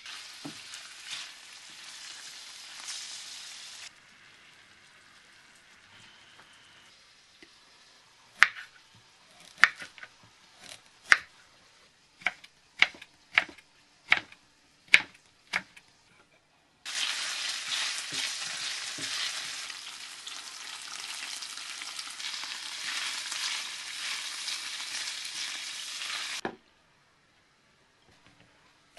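Cubed pork sizzling in hot oil in a stainless-steel frying pan as it is stirred. Then a chef's knife chops carrot on a wooden cutting board, about ten sharp knocks. Frying sizzle then comes back louder for about ten seconds and cuts off suddenly.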